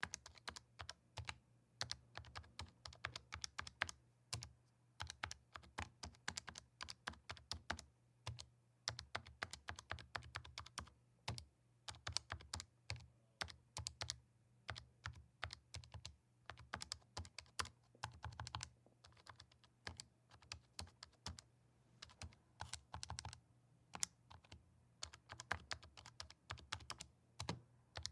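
Calculator buttons being pressed: quick runs of short plastic clicks as numbers are keyed in, with brief pauses between runs.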